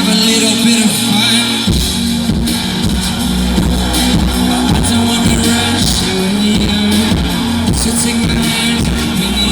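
Electronic pop music played live by a band, with a deep, pulsing bass beat coming in about two seconds in.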